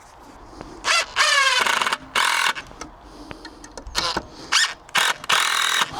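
Cordless drill driving long screws into timber in a series of short bursts, the motor's pitch sliding as the screw takes load in the longest burst near the start.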